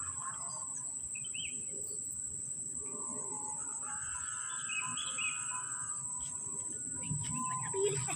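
Open-air ambience: a few short bird chirps, about two seconds in and again around five seconds in, over a steady high-pitched insect drone and faint wind rumble.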